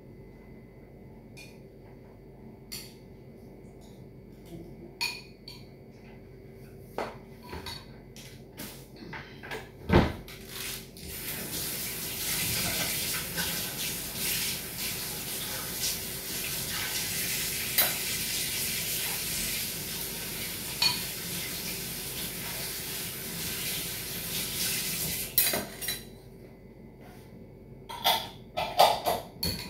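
Dishes and cutlery clinking, with a sharp knock about ten seconds in, then a kitchen tap running steadily for about fourteen seconds before shutting off, followed by a few more clinks near the end.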